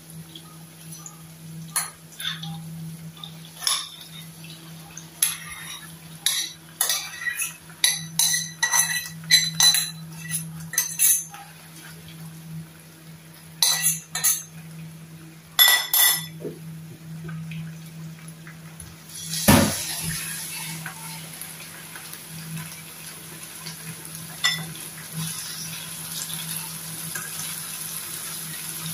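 Metal spoon clinking and scraping against a stainless steel saucepan as cooked mung beans are scooped into a frying pan, with a loud knock about two-thirds of the way through. After the knock the beans sizzle steadily in the hot pan while they are stirred, over a constant low hum.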